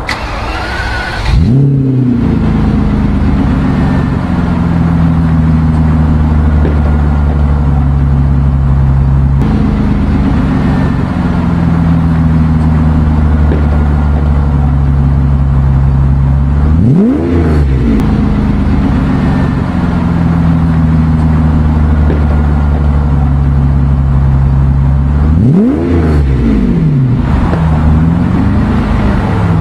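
Car engine idling steadily with short blips of the throttle: one rev about a second in, another around the middle, and three in quick succession near the end, each rising and falling back to idle.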